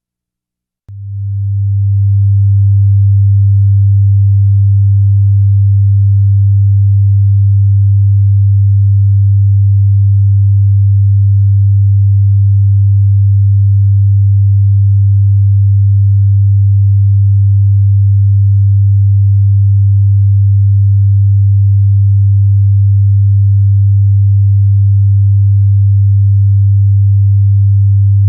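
A steady 100 Hz sine-wave test tone, a low hum that fades in about a second in and then holds at one level and pitch, for checking a speaker system's low-frequency response.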